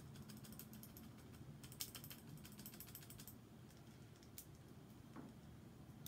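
Lubed Gateron Clear linear switches, fitted in a keyboard switch plate without keycaps, pressed by fingers in quick succession: a very quiet rapid run of light clicks for about three seconds, then a single click later.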